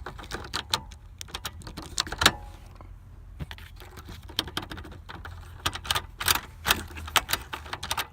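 Irregular metallic clicks and key jangling as a new Subaru ignition lock cylinder, its key turned to ACC, is pushed back into the steering column. The loudest click comes a little over two seconds in, with a busy run of clicks near the end.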